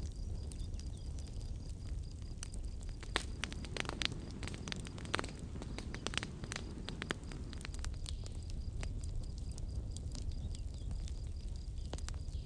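Campfire burning, wood crackling with irregular sharp snaps and pops over a steady low rumble of the flames.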